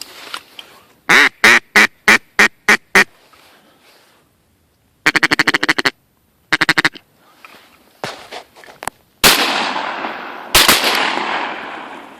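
Duck quacks: a series of about six loud quacks, then a fast run of quacking and a shorter run after it. Near the end, two shotgun shots about a second and a half apart, each with a long fading echo, fired at a crippled duck.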